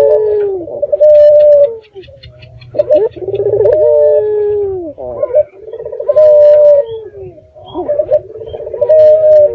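Puter dove (Barbary dove) cooing, four loud rolling coo phrases in a row, each about a second and a half long and dropping in pitch at its end; the bird is in full, lively song (gacor), as used in a lure recording to make other puter doves answer.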